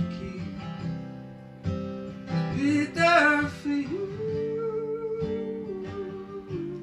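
A song with acoustic guitar and a man's singing voice, strummed chords under a long held note in the second half.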